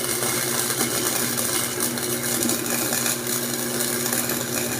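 Flux-core wire-feed welder laying a bead on steel pipe: a steady crackle and sizzle of the arc over a low electrical hum.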